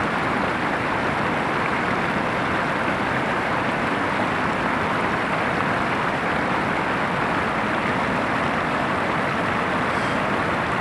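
Steady rush of water pouring over the Venta Rapid (Ventas rumba), the broad, low waterfall on the Venta River at Kuldīga, running high across its whole width.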